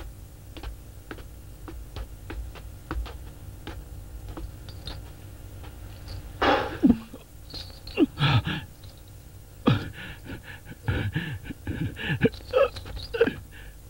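A man gasping, panting and groaning as he comes round after being knocked out and beaten. Before that there are light clicks and knocks, with a sudden loud burst about six and a half seconds in.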